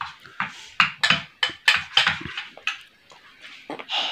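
A quick, irregular run of sharp clicks and smacks, about a dozen in the first three seconds. Near the end there is a softer rustling sound.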